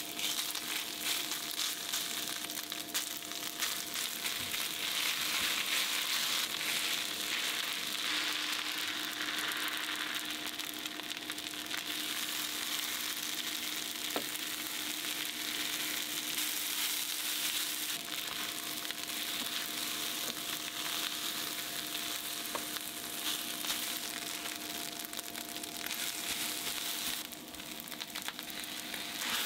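Rice, ground meat and kimchi sizzling as they are stir-fried in a frying pan, with a faint steady hum beneath. The sizzle dips briefly near the end.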